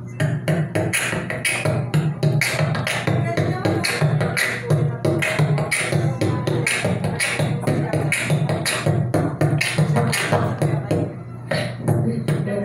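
A boy beatboxing into a handheld microphone, heard through the amplification: a steady rhythm of low kick-drum thumps and sharp snare and hi-hat clicks made with the mouth, with a brief break near the end.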